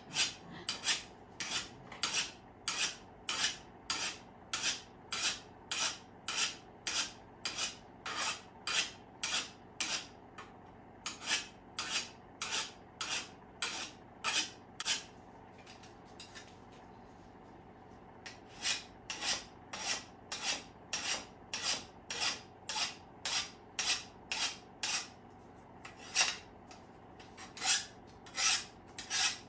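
Hand file sharpening the steel edge of a garden shovel: quick, regular rasping strokes at about two a second, with a pause of a few seconds about halfway through.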